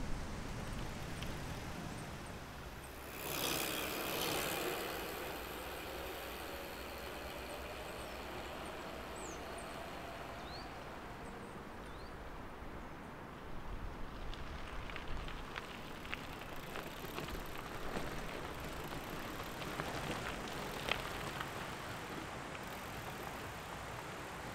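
Outdoor ambience with a vehicle passing about three seconds in. In the second half, loaded bicycles rattle and click over a rough trail.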